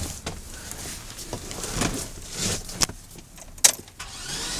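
Clicks and knocks of handling in the pickup's cab, with a sharp click about three and a half seconds in. Near the end the 2004 Chevrolet Silverado 2500HD's starter motor begins cranking with a rising whine, the truck being started off a jump box.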